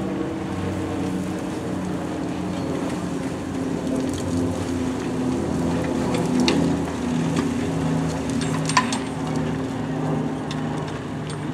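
Brush truck's engine running at low speed as it creeps off-road through brush, a steady drone with a slight waver in pitch. A couple of faint sharp clicks sound about halfway through and again near the end.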